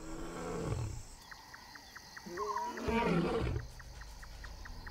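Male African lion roaring: two long, falling calls, the louder one about two and a half seconds in. A faint, even ticking runs behind, about four ticks a second.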